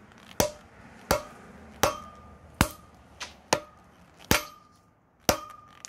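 A 3 lb hammer smashing a micarta knife handle on an anvil: eight hard blows about three-quarters of a second apart, one lighter, several leaving a short metallic ring from the anvil. The handle is breaking apart under the blows.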